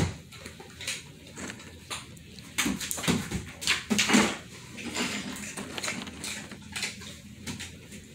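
A German Shepherd twisting and scrambling on a hardwood floor, then nosing about for a dropped treat: irregular clicks, scuffs and thumps of its claws and paws on the boards, with sniffing. The loudest comes right at the start and again about three to four seconds in.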